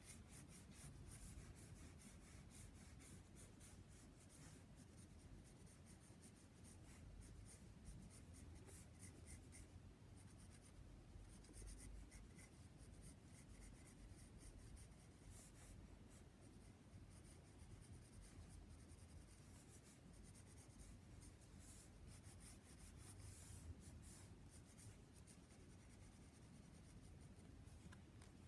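Graphite pencil scratching on sketchbook paper in many quick, light strokes with short pauses, faint and close.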